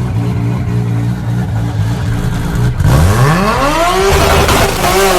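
A vehicle engine running at a steady low idle, then about three seconds in revving up in a long rising sweep that holds high, dips briefly near the end and climbs again.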